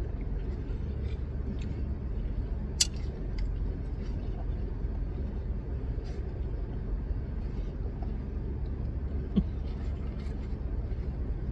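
Steady low rumble of a running car heard inside the closed cabin, with one sharp click about three seconds in.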